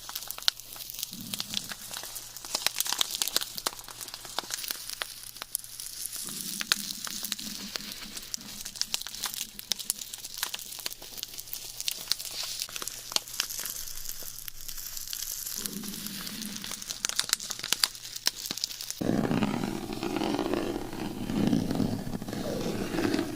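A man's stomach growling in short low rumbles, three times, under steady crackly crinkling from close-miked ASMR trigger sounds. About nineteen seconds in, the crinkling stops and a louder, longer, warbling stomach rumble begins.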